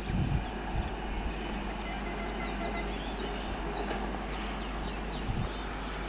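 Small birds chirping in many short, quick notes over a steady low background rumble.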